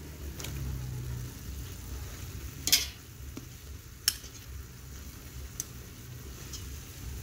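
Metal tongs turning chicken in a steaming aluminium pot, over a steady low rumble and sizzle from the simmering pot. Sharp clacks of the tongs against the pot come about two and a half and four seconds in, the loudest sounds, with a few fainter taps.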